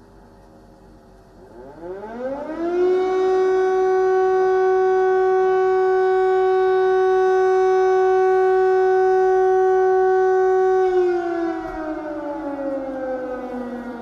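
Air raid siren sounding an alert: its wail rises over about a second and a half, holds one steady tone for about eight seconds, then slowly falls away near the end. A faint falling tail of an earlier wail is heard at the start.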